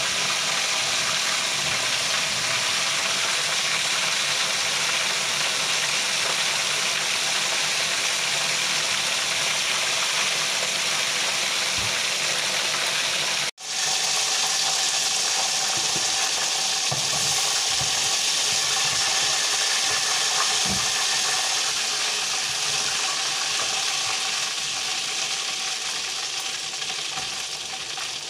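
Chicken pieces frying in hot oil in a pot, a steady sizzle throughout. The sound cuts out for an instant about halfway through.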